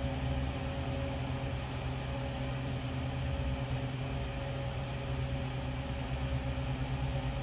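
A fan running with a steady hum and an even hiss. One faint click comes a little past halfway.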